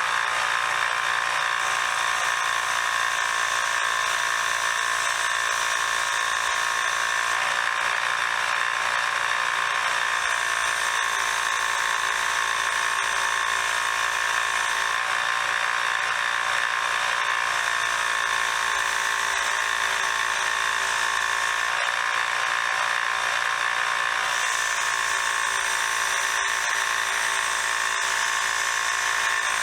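Belt sander fitted with a surface-conditioning belt, running at a steady speed while a screwdriver's slotted tip is cleaned of rust and grime on the belt.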